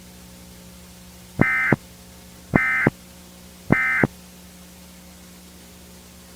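Emergency Alert System end-of-message code: three short buzzy data bursts, each about a third of a second long and about a second apart, over a faint steady low hum. They mark the close of the alert.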